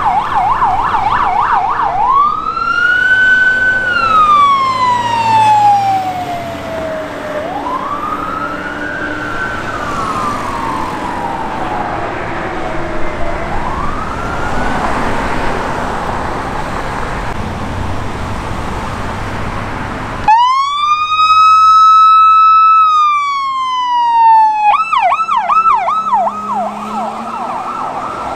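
Emergency vehicle sirens in traffic. First a fire engine's siren, a fast yelp that changes to slow rising and falling wails. Then a California Highway Patrol car's siren winds up into a wail, falls, and switches to a fast yelp near the end.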